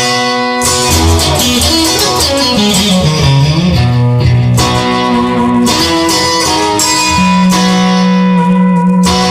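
Music led by guitar, with sustained chords over a moving bass line and sharp accents every few seconds.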